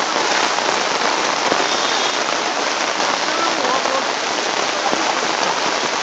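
Rain falling steadily, a dense, even hiss with no let-up. Faint voices can be heard under it around the middle.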